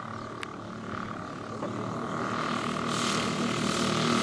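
Twin propeller engines of a large-scale RC Beechcraft 18 model running at low power as it lands and rolls out on grass, growing louder in the second half. A single sharp click early on.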